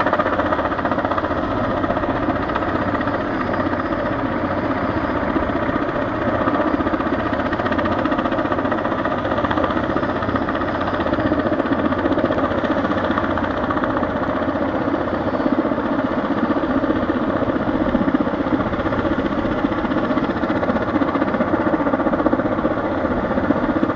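Helicopter running steadily, a loud, unbroken engine and rotor noise.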